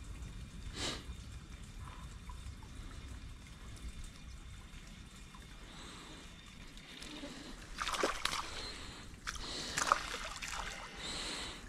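Splashing and sloshing of river water, with sharp splashes about eight seconds in and again near the end, the loudest at about ten seconds.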